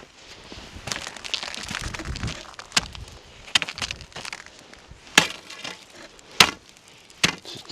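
Thin, soft lake ice being struck and chopped, about five sharp irregular cracking hits with some scraping between them. The ice is less than 2 inches thick and flexing.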